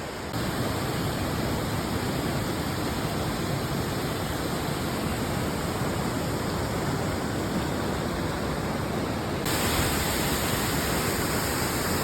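Waterfall rushing: a steady wash of falling water that gets louder and hissier near the end.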